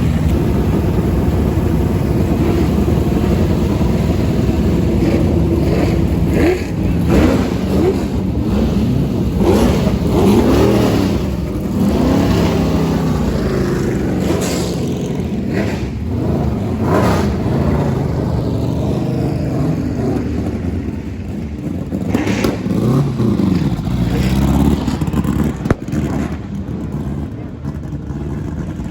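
Vintage race car engines: a steady idle at first, then repeated revving with the pitch rising and falling many times.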